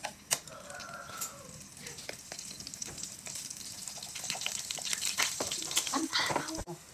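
Sliced shallots and garlic sizzling in hot oil in a frying pan, with a wooden spatula clicking and scraping against the pan. The sizzle grows louder past the middle.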